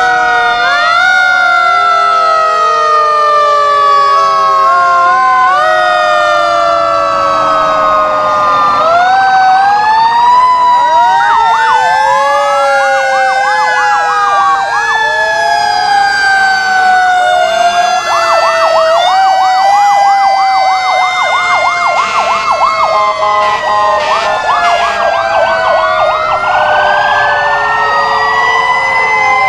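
Several fire truck sirens sounding at once as the engines pass. Long wails slowly fall in pitch and repeatedly climb back up, overlapping each other, with a fast up-and-down yelping siren joining in twice during the middle stretch.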